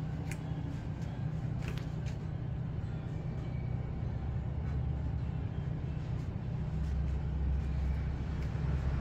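A steady low mechanical hum with a few faint clicks, growing slightly louder near the end.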